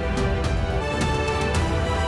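News theme music with a steady beat under sustained chords and a heavy bass.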